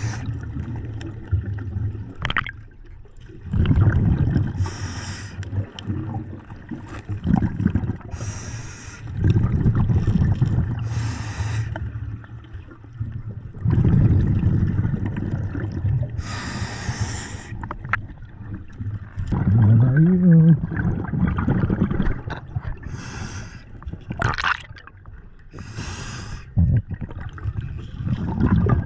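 Scuba diver breathing through a regulator underwater: short hissing inhales alternating with longer, louder rumbling bursts of exhaled bubbles, in a slow, uneven rhythm.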